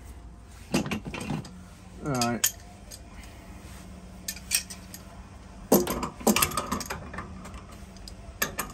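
Irregular metallic clicks and clinks of hand tools on metal plumbing fittings, coming in several short clusters. A brief falling grunt comes about two seconds in.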